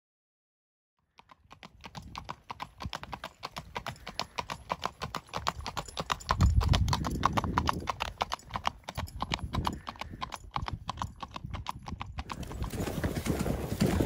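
A gaited molly mule's hooves clip-clopping in a rapid, even rhythm on pavement, starting about a second in. Near the end the hoofbeats turn duller and blend into a steady rustling haze as the mule moves along a dirt trail.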